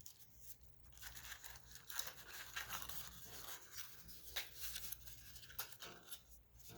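Rustling and handling of unboxed packaging and accessories, with scattered light clicks and taps.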